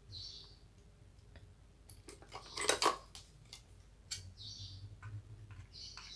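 Light metallic clicks on a workbench, with a brief louder clatter of small hard objects about two and a half seconds in. A few short high chirps sound in the background.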